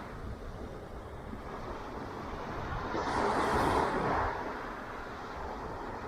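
Ocean surf rumbling steadily, with one wave breaking and washing in about three seconds in, loudest near the four-second mark before fading back.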